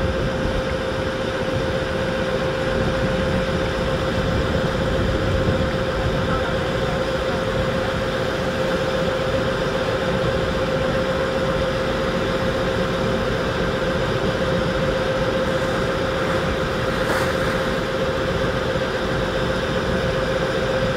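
Excursion ship's engine running at a steady cruise, a constant drone with one held hum and an even wash beneath it.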